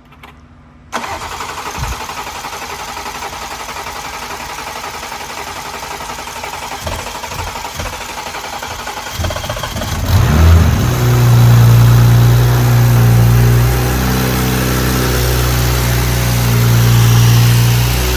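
BMW B58 turbocharged inline-six being started for the first time after a big single turbo install: the starter cranks steadily for about nine seconds, then the engine catches, flares up briefly and settles into a steady idle.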